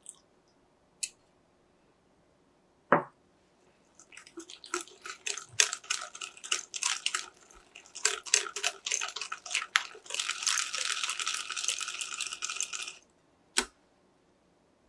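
Wire balloon whisk beating financier batter in a glass bowl, the wires clicking and scraping against the glass in quick uneven strokes from about four seconds in, then a fast steady whisking for about three seconds near the end, as browned butter is worked in to emulsify. A single knock comes before the whisking starts and another just after it stops.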